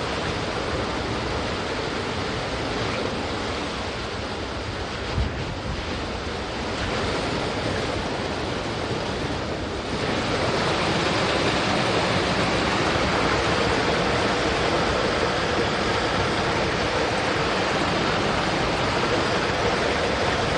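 Forest stream water rushing steadily, a little louder from about halfway, with one brief low thump about five seconds in.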